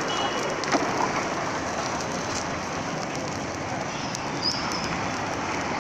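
Dosa batter sizzling on a hot flat griddle: a steady hiss, with a couple of light clicks about a second in.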